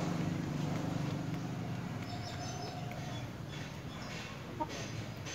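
A chicken clucking, with one short cluck about four and a half seconds in, over a steady low hum that fades away during the first two seconds.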